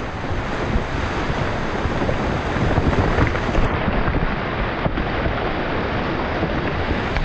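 Steady rushing noise of mud, water and debris raining down after a Tannerite explosion breaches a beaver dam.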